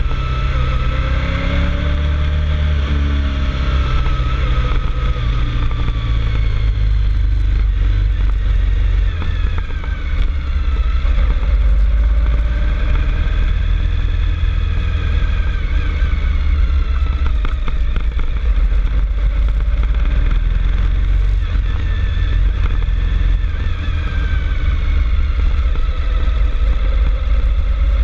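Vehicle engine running under way uphill, its pitch slowly rising and falling with the throttle, under a constant heavy rumble of wind on the microphone.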